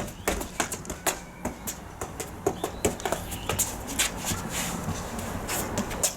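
A quick, irregular series of sharp taps and clicks, about three or four a second, over a low steady hum.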